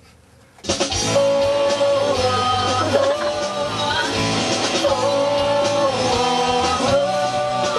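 Rock backing track with electric guitar starting about half a second in, with a woman singing long held notes over it for a demo recording take.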